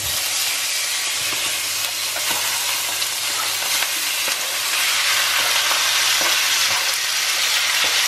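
Cubes of raw beef sizzling in hot oil in a frying pan, the sizzle starting suddenly as the meat goes in and getting a little louder about five seconds in.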